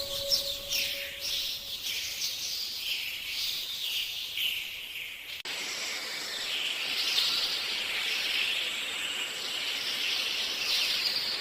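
Birds chirping and calling in quick, high-pitched notes. About five seconds in, the sound changes abruptly to a denser, steadier wash of high bird chatter.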